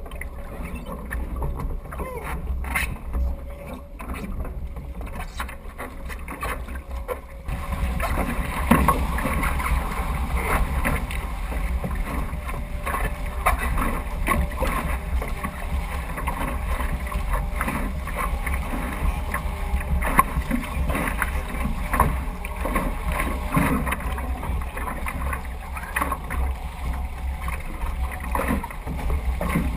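Water rushing and splashing along the hull of a Weta trimaran under sail, over a low rumble of wind on the microphone. It grows louder about a quarter of the way in, as the boat picks up speed.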